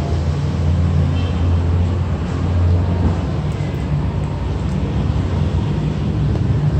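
Steady low mechanical rumble that swells slightly about a second in and eases after about three seconds.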